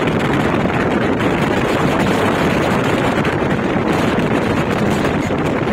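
Steady running noise of a passenger express train at speed: a continuous rumble and rush that holds even throughout.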